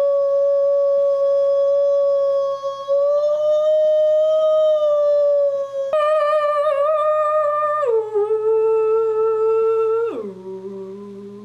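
People imitating a whale call with their voices: long held wailing tones, taken up by one voice after another. Each new voice cuts in abruptly at a new pitch about six, eight and ten seconds in, the middle one wavering and the last much lower.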